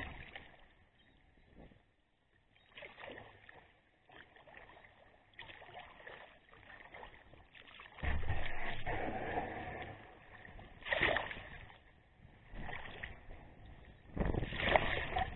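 Sea kayak paddle strokes: the blades dip and splash in calm shallow water every second or two, with a louder, longer stretch of water noise about eight seconds in.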